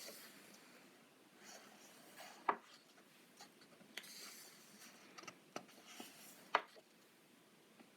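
Faint paper swishes and rustles as the glossy pages of a stapled softcover coloring book are turned, with two sharp clicks standing out, one about two and a half seconds in and one later on.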